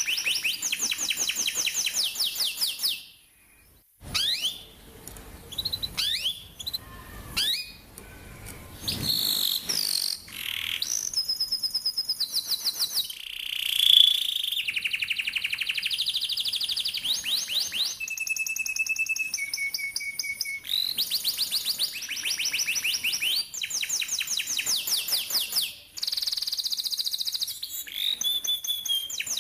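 Canary singing a long song of rapid rolled trills, fast repeated chirps between about 2 and 8 kHz, with sweeping glides and a few held whistled notes; the song breaks off briefly a few seconds in and again near the end.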